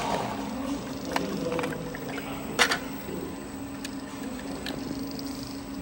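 Automatic jar capping and foil sealing line running with a steady hum, with a few sharp clicks and knocks from the plastic jars of metal nuts moving along its stainless-steel conveyors; the loudest knock comes about two and a half seconds in.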